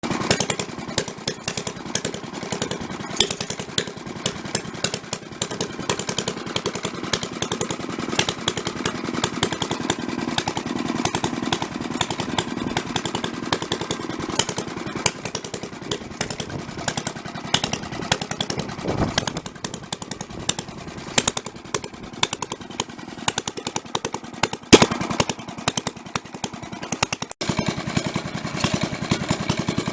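1930 Fairbanks Morse 1½ hp ZD single-cylinder stationary engine running steadily, with a rapid, even run of firing knocks and clatter, driving a Hudson pump jack. There is a sharp, louder crack about 25 seconds in.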